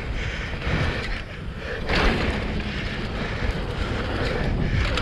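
Wind rushing over a helmet-mounted camera's microphone and the rumble of a downhill mountain bike's tyres on a dirt trail during a fast descent, with a louder thud about two seconds in.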